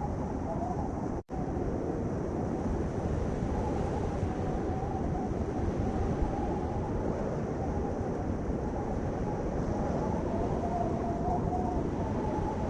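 Steady low rumbling noise with a faint wavering tone above it, broken by a momentary dropout to silence about a second in.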